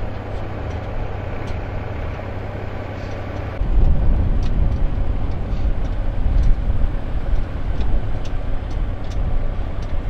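Tractor engine running steadily as it pulls a trailer loaded with hay bales, heard from the trailer behind it. About three and a half seconds in the sound changes abruptly to a louder, rougher low rumble.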